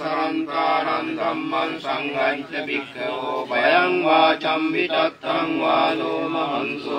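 Theravada Buddhist monks chanting Pali protective verses (pirith) in a steady, sung recitation.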